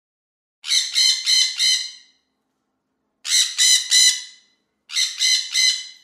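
Macaw squawking in three bursts of about four quick calls each, roughly three calls a second, with a gap of about a second between bursts.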